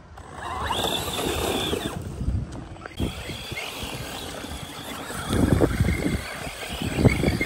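Radio-controlled short-course trucks driving hard on sand, their electric motors whining as they drift and throw up sand. The sound surges louder about five and a half seconds in and again near seven seconds.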